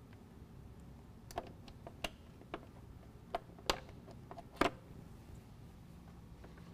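Scattered sharp plastic clicks and snaps from a panel tool prying two-piece plastic push pins out of a plastic guard, about half a dozen in a few seconds, the loudest a little past the middle.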